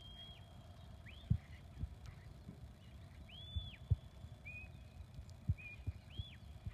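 A shepherd's high whistled commands to a working sheepdog herding sheep: about six short whistles, some swooping up and down, some held level. A few brief low thumps fall between them.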